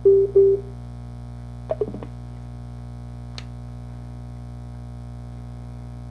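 Bluetooth alarm clock speaker giving two short electronic prompt tones as it switches into Bluetooth mode, then a steady electrical hum from the speaker with a couple of faint button clicks.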